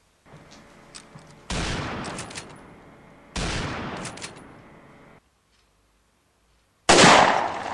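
Three sudden loud bangs, each fading away over a second or two: one about a second and a half in, one near the middle, and the loudest near the end. The first two carry a quick rattle as they fade, like gunfire.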